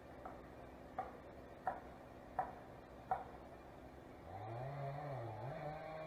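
Five evenly spaced knocks about two-thirds of a second apart, then an engine revving up and down from about four seconds in.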